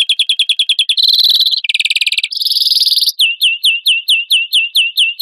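European greenfinch song: a fast run of repeated high chirps, then three quick buzzing trills, then a string of clear down-slurred notes at about three a second.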